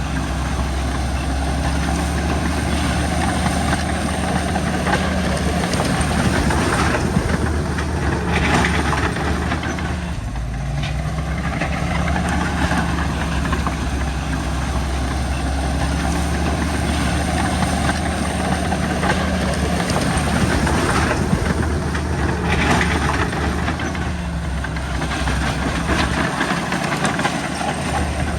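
Bulldozer's diesel engine running steadily as it works, its pitch dipping briefly and recovering about ten seconds in, with a few harsher, noisier stretches.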